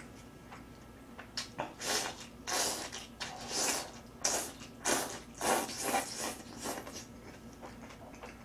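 Buckwheat noodles (makguksu) being slurped up with chopsticks: a quick run of about a dozen wet, sucking slurps, some drawn out, starting about a second in and stopping about a second before the end.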